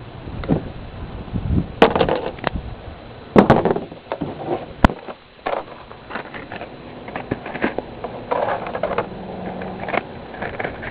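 Irregular clicks, knocks and rustling of objects being handled.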